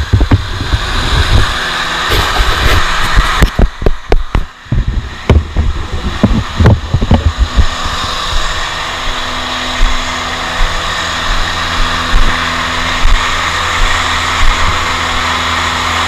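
Finn bark blower running steadily while blowing mulch, with a run of low knocks and thumps in the first half before it settles into an even drone.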